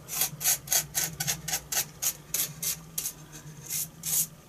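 The bottle's brush applicator scrubs Copydex latex contact adhesive onto a foam wing panel in quick back-and-forth strokes, about three or four scratchy strokes a second, with a short pause a little after the middle.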